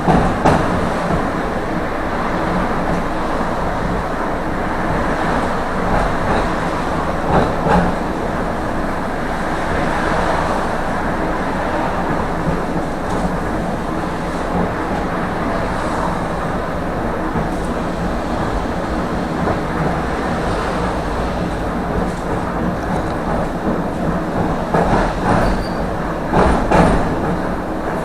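Tram running along its rails, heard from inside the car: a steady rumble of wheels and running gear with occasional clacks, and a burst of louder clattering near the end.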